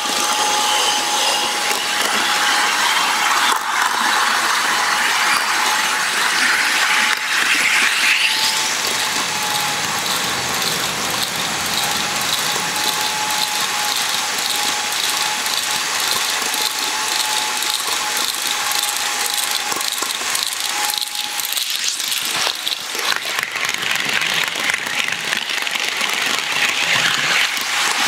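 HO scale model train running along the track right at the microphone: a steady mechanical whir of small gearing with fine, rapid wheel clicking on the rails. A thin steady whine drops out about three quarters of the way through.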